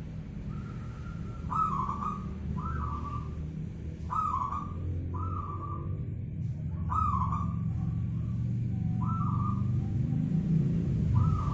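Zebra dove (perkutut) cooing: short, slightly falling notes repeated every second or two, over a steady low rumble.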